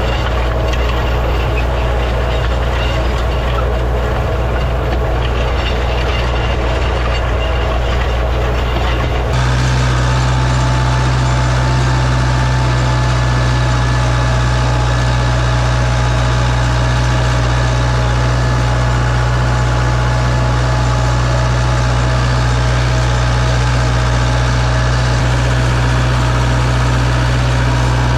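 Farm tractor engine running steadily, with an abrupt change about nine seconds in to a stronger, steadier low hum.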